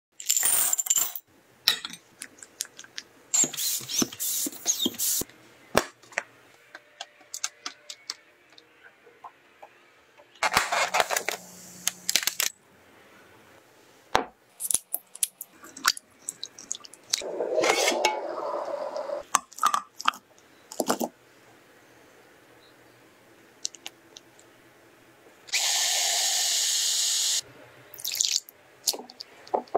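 Kitchen preparation sounds: glass bowls and dishes clinking and knocking on a wooden table, small pieces tipped into a glass bowl, and several bursts of pouring liquid or running water, the loudest and steadiest about two-thirds of the way through.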